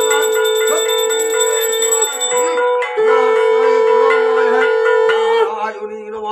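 Puja bells ringing rapidly over a sung devotional melody. The ringing breaks off briefly about two seconds in, resumes, and stops about five and a half seconds in, leaving a voice chanting.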